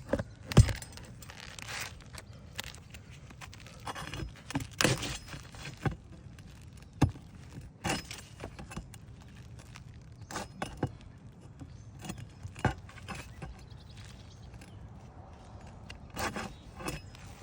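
Metal tool clinking, knocking and scraping against roofing nails under a shingle as they are worked loose: irregular sharp clicks with scraping between, the loudest about half a second in.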